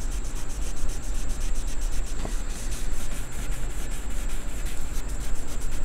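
Wet green scouring pad scrubbed back and forth over the painted metal base of a barber's chair: a steady rubbing.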